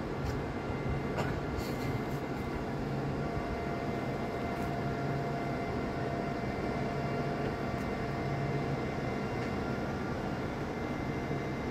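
Steady drone of heavy diesel machinery, a large mobile crane's engine running, with a few faint clicks in the first two seconds.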